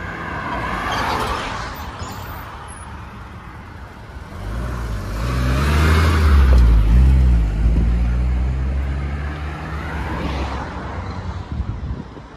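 Road traffic passing close by. One car goes by right alongside with a loud, low engine note that rises and falls in pitch, loudest about six seconds in, between lighter passes of other vehicles.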